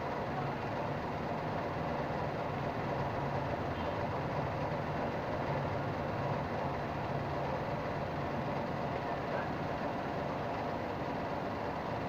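Steady background noise with a faint, even hum, unchanging throughout; no distinct clicks or tool sounds stand out.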